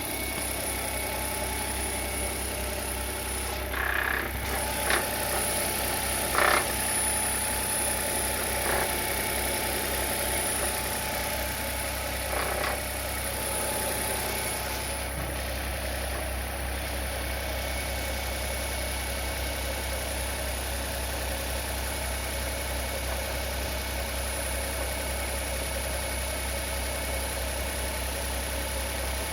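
Nissan Note e-POWER's 1.2-litre three-cylinder petrol engine starting and running, heard with the bonnet open. A few seconds in come several short drill-like whirring bursts, which the owner suspects is an abnormal noise at start-up. After them the engine runs steadily.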